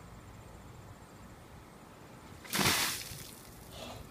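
Ice water sloshing in a plastic tub as it is lifted, one short splashing burst about two and a half seconds in.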